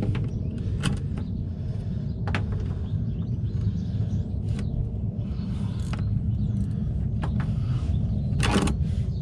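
Scattered clicks and light knocks of a 13 mm deep socket being worked onto the coolant drain bolt under the car, over a steady low rumble.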